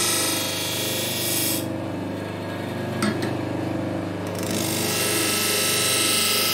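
Vicmarc DS 200 S grinder-buffer running steadily, with the hiss of a knife blade honed on its slotted paper wheel in a final pass for a sharper-than-razor edge. The hiss stops a couple of seconds in as the blade is lifted, a couple of sharp clicks follow as the knife is turned to its other side, and the hiss resumes about four seconds in.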